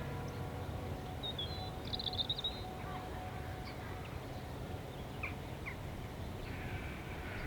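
A bird calls briefly with a quick run of high chirps about two seconds in, and a few fainter single chirps follow later, over a steady low outdoor rumble.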